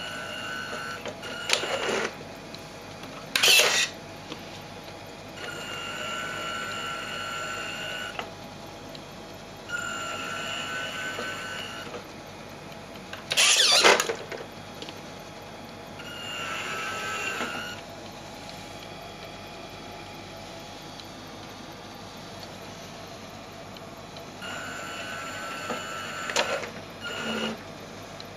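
Small electric gear motors and servos of a radio-controlled model truck whining at a steady pitch in repeated short runs of one to three seconds. A few brief, louder noises come between the runs.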